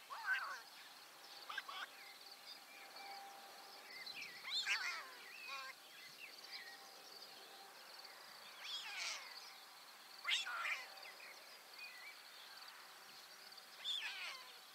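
Mewing animal calls, each sliding down in pitch, about six of them spaced a few seconds apart, over a faint steady background.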